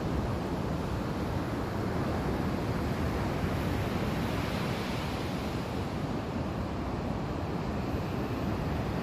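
Sea surf breaking and washing onto the beach: a steady rushing wash that swells a little around the middle.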